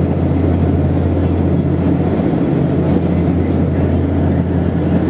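Steady low drone of an Embraer EMB 120 Brasilia's twin turboprop engines and propellers, heard from inside the passenger cabin, with a strong low hum and a few steady tones above it.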